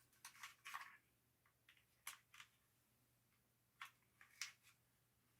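Faint, scattered small clicks and scrapes from a screwdriver working a tight screw in the plastic body of a remote-control dolphin toy. A cluster of clicks comes in the first second, then single ticks about two seconds in and again near four seconds in.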